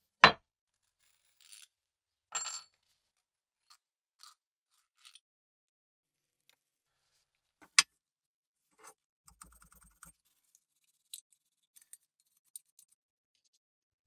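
Small metal lighter parts being handled and set down on a wooden workbench: scattered sharp clicks and knocks, the loudest just after the start and another about eight seconds in, with a short scrape about two and a half seconds in and fainter ticks later.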